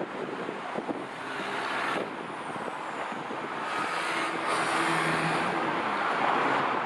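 Electric commuter train approaching on an elevated viaduct: a steady running rumble that grows louder in the second half, with a brief humming tone about four seconds in.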